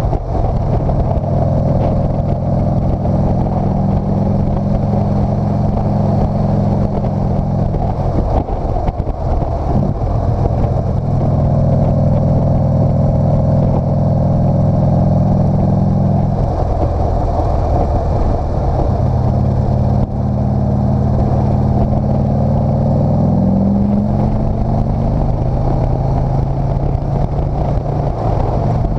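Motorcycle engine running under throttle while riding uphill, heard from the bike itself. Its steady note breaks off briefly about nine seconds in and again around seventeen seconds, then climbs in pitch near the end.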